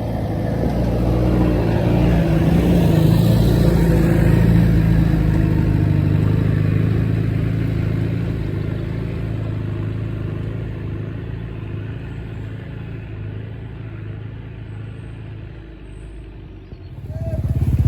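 Off-road 4x4 vehicle engine running, loudest about four seconds in and then slowly fading away; near the end it gives way abruptly to a louder, rougher engine sound.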